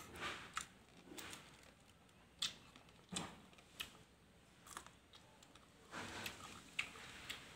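Close-up eating sounds from shredded green papaya salad being chewed and picked up with wooden chopsticks: scattered small crunchy clicks and a few short soft rustling swells.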